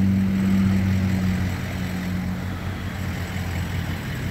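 Tow vehicle's engine running steadily with a low hum that eases off a little partway through.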